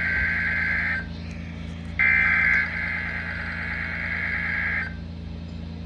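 Weather radio warning alarm sounding for the weekly test: a high electronic buzzing tone that breaks off about a second in, comes back for about three seconds, and breaks off again near the end. A steady low hum runs underneath.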